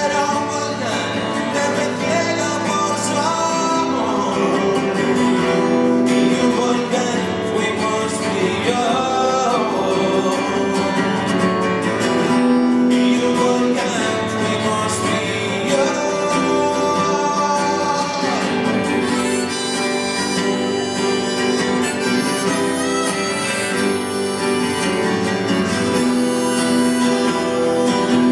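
Live band playing an instrumental passage: strummed acoustic guitar under a harmonica lead.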